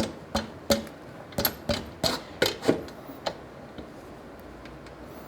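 Irregular light metal clicks and knocks, about ten in three seconds, as the rear axle and spacer block are fitted into the motorcycle's wheel and swing arm.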